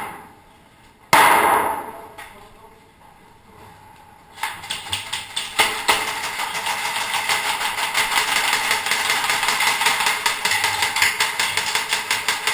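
Airsoft gunfire in an echoing concrete stairwell. A single loud bang about a second in dies away over about a second. From about four seconds in comes a steady run of sharp rapid pops, several a second.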